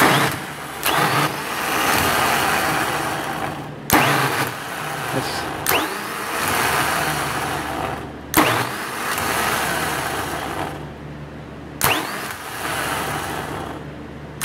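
Worn ten-year-old heavy-duty diesel starter motor, out of a 2008 MaxxForce 7, spun up on the bench four times in runs of about three seconds each. Every run opens with a sharp click of the solenoid and a rising whine as the motor spins up, then runs steadily until released. The owner calls the starter worn out, dragging with a growl.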